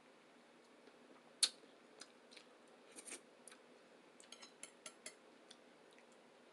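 Close-up eating sounds: one sharp click about a second and a half in, then a scatter of smaller clicks and crackles that die away near the end.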